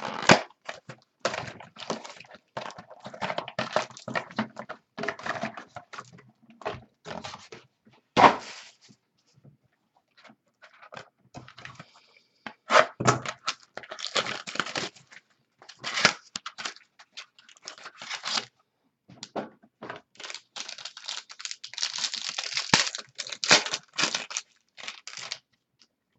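Baseball card hobby box being unwrapped and its packs handled: plastic wrapping tearing and crinkling, with cardboard packs knocking and sliding on a tabletop, in irregular bursts with a short pause partway through.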